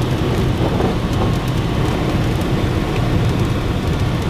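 Steady low rumble of a car driving on a wet highway, heard from inside the cabin, with rain hitting the windshield and a few faint ticks.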